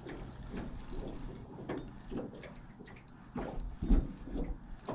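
Spinning reel being cranked to reel in a hooked blue catfish, with a short loud knock about four seconds in.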